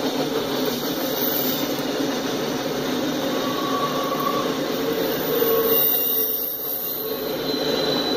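Enclosed autorack freight cars rolling past at speed: a steady noise of steel wheels running on the rails.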